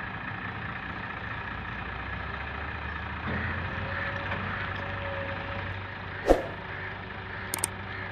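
Tractor diesel engine running steadily at low revs, with a single sharp knock about six seconds in.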